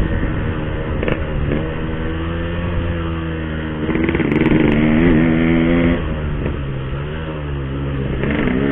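Yamaha RX-King's single-cylinder two-stroke engine running under the rider, its pitch rising and falling several times as the throttle is opened and closed.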